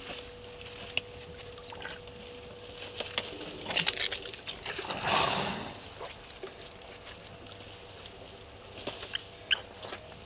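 African elephants drinking: water splashing and pouring from their trunks, loudest in two rushing spells around the middle, with scattered clicks and a few short bird chirps near the end.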